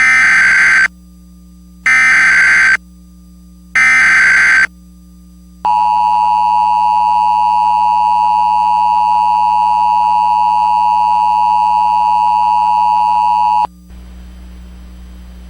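Emergency Alert System header: three short bursts of SAME digital data, about two seconds apart, then the two-tone EAS attention signal held steady for about eight seconds before cutting off suddenly. Together they mark the start of an emergency alert broadcast, here a tornado warning.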